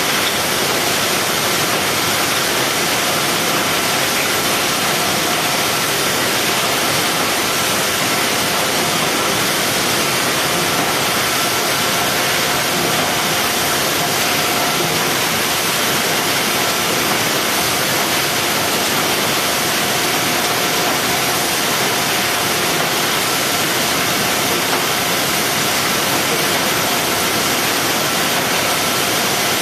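Steady machinery noise of a running box palletizing line: an even, unbroken hiss with a faint steady whine, and no separate clunks or strokes standing out.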